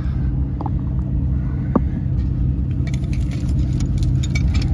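1968 Dodge D300 tow truck's engine idling steadily, with light metal clinks and jangles of the tow hooks and chain being handled from about three seconds in.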